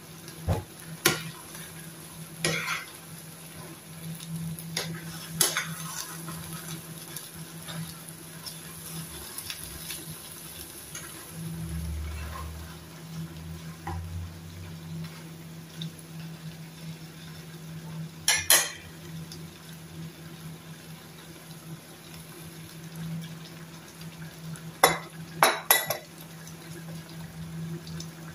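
Metal spoon stirring a frying pan of simmering vegetables, with sharp clinks and knocks of the spoon against the pan a few times near the start, once in the middle and in a quick cluster near the end, over the low bubbling of the pan and a steady low hum.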